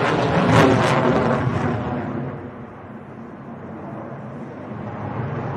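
Jet roar from a twin-engine Sukhoi Flanker-family fighter with afterburners lit. It swells up suddenly at the start and stays loud and wavering for about two seconds, then falls back to a steadier, lower roar that builds again near the end.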